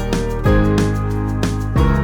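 Background music: a plucked guitar tune with a steady bass, notes struck at an even pace.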